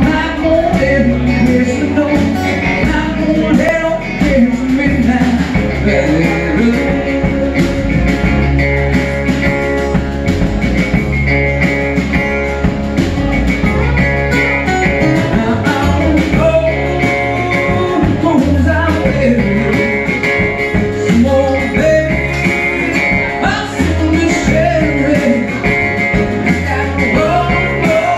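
Live blues-rock band playing, with upright bass, acoustic guitars and drums under a male lead singer.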